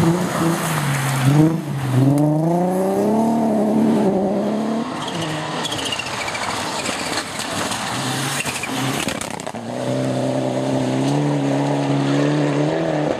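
Rally cars on a gravel stage. A Nissan 350Z's engine revs hard as it passes, its pitch climbing in steps through gear changes over the first few seconds. A Mitsubishi Lancer Evolution then comes through, and its engine holds a steady note near the end.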